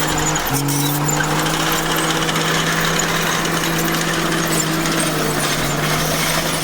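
Komatsu bulldozer's diesel engine running at a steady, even pitch, with a constant hiss of machine noise over it and a brief break about half a second in.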